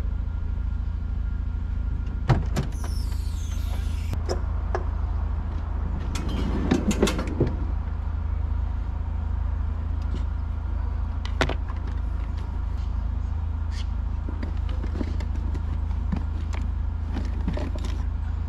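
Gear knocking and clinking as items are rummaged through in a truck's storage compartment: scattered sharp knocks and clicks, with a cluster about six to seven seconds in. A steady low rumble runs underneath.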